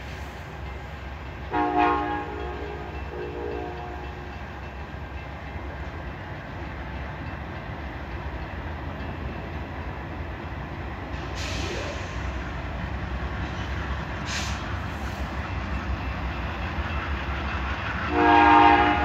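Amtrak diesel locomotive approaching along the platform, its engine running with a steady low rumble that slowly grows louder. Its multi-tone horn sounds about two seconds in for roughly two seconds, and again, louder, near the end. Two short hisses come midway.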